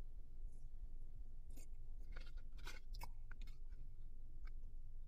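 A person chewing fries, with scattered small clicks and crackles from handling food, over a steady low hum.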